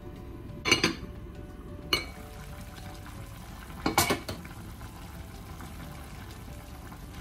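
Glass lid and metal spoon clinking against a ceramic casserole dish: a sharp double clink about a second in, a single one at two seconds, and a short cluster of clinks about four seconds in, over a steady low hum.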